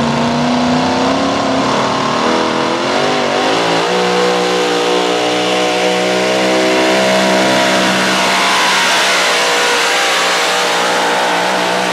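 Supercharged engine of a modified 4x4 pulling truck at full throttle while pulling a sled. It climbs in pitch over the first couple of seconds, wavers briefly about three seconds in, then holds a steady high-revving note.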